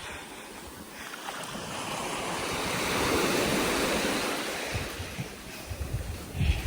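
Sea waves washing onto a beach, a rush of surf that swells and fades, with wind buffeting the microphone in the last couple of seconds.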